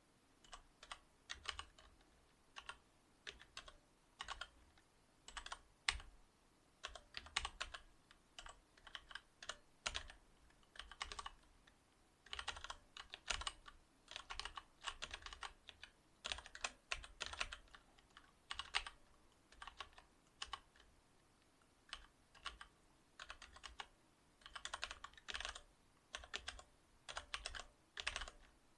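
Typing on a Cherry MX Board 8.0 mechanical keyboard with Cherry MX Silver linear switches: fast runs of keystrokes in irregular bursts, with brief pauses between them.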